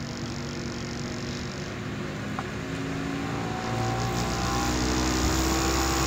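CPU cooler fan with one snapped blade spinning up as the PC boots: a whir with a low vibrating hum that grows louder about four seconds in. The hum is the wobble of the fan running out of balance because of the broken blade.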